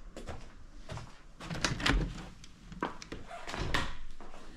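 A door being opened and shut, with a few knocks and a latch clunk between about one and a half and three seconds in.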